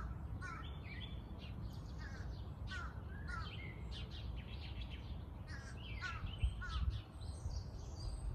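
Crows cawing among other birds' short chirps and calls, repeated throughout, over a steady low background rumble.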